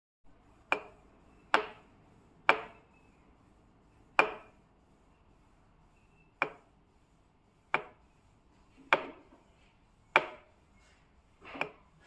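Nine sharp smacks, one to two seconds apart, from a chiropractor's hands striking a patient's bare feet.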